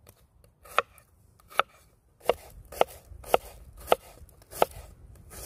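Chef's knife chopping diced onion on a wooden log-slice board: about eight sharp knocks of the blade on the wood, a little over half a second apart.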